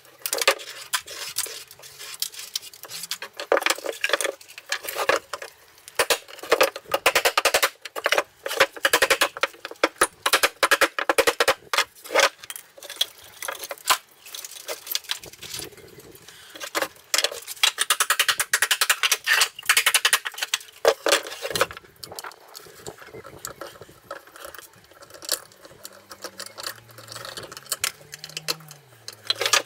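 Dense, rapid clicking, tapping and rattling of metal parts, wires and hand tools as an old sinusoidal electrotherapy unit's wooden box and steel chassis are taken apart. The clatter thins out about three-quarters of the way through.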